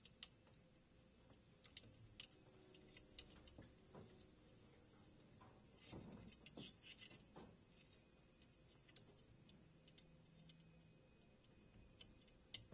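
Near silence with faint, scattered small clicks of metal parts being handled, as an anti-walk pin bar and screw are fitted to an AR-15 lower receiver. There is a brief flurry of clicks about six to seven seconds in.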